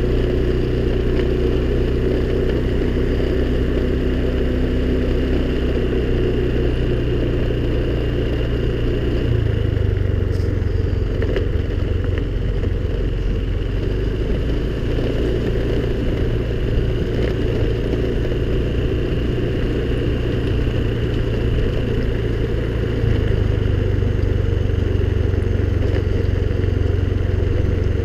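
Honda scooter engine running steadily while riding. The engine note shifts about a third of the way in and again near the end, with a slight rise in loudness at the second change.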